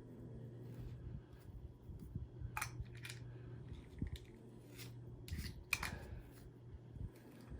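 Scissors snipping, several short sharp cuts in two small groups, cutting hair that is wound around a vacuum cleaner's beater bar brush roll.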